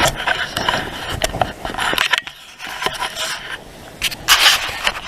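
Irregular scraping and rustling with scattered sharp clicks, pausing briefly a little over two seconds in and swelling into a loud scrape about four seconds in.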